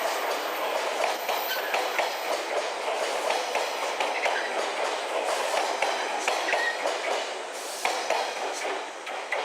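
Train rolling along the station track, its wheels clicking over rail joints with a few brief squeals. The sound eases off near the end as the train slows.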